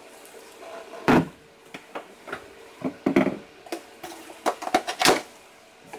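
A series of clunks and knocks as the Vitamix's plastic blender container is handled and things are set down on the kitchen counter. The loudest comes about a second in, with several lighter knocks after it. A faint steady hum runs underneath.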